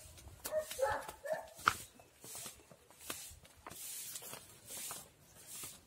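A dog barking a few short times about half a second to a second and a half in, followed by soft, airy swishes every second or so.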